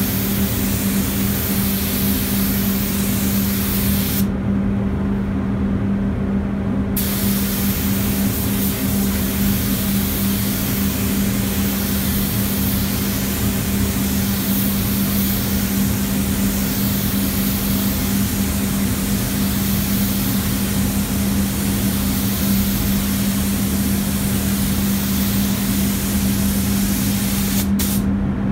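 Rongpeng R802 gravity-feed air spray gun hissing steadily as it sprays paint. The hiss stops for about three seconds some four seconds in, then resumes, and cuts off again just before the end as the trigger is released. A steady low hum runs underneath.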